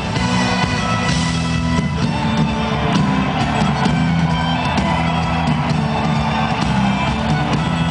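Live band playing amplified rock-style music with a drum kit, recorded from among the concert audience.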